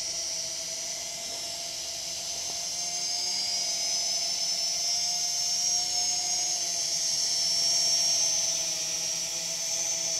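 DWI X35 mini quadcopter in flight, its small motors and propellers giving a steady high whine that wavers slightly in pitch as it manoeuvres.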